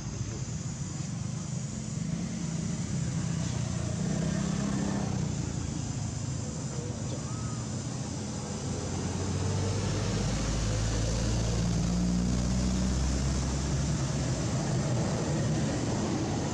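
A motor engine's low hum, growing louder about nine seconds in and dropping back around fourteen seconds.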